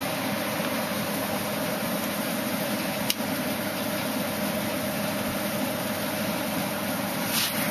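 Crosley 25AY tube radio playing steady static hiss with a faint low hum through its speaker, with one sharp click about three seconds in.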